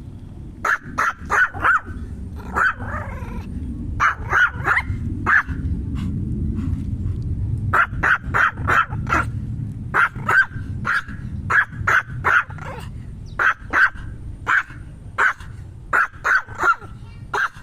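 Small Pomeranian barking: short, high-pitched yaps in quick runs of two to four, repeated many times, over a steady low rumble.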